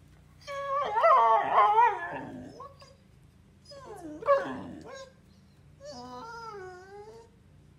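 Dog howling and whining in three drawn-out, wavering cries, the first the loudest and the last a steadier, softer moan.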